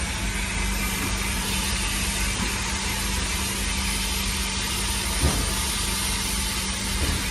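A power sander runs steadily with an even hum and hiss, sanding cured body filler with P120 paper. There is a light knock about five seconds in.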